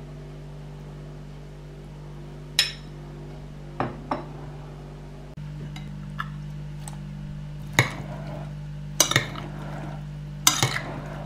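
A metal fork clinking against a ceramic bowl as a salad is tossed: a few single clinks in the first half, then quick clusters of clinks in the second half, over a steady low hum.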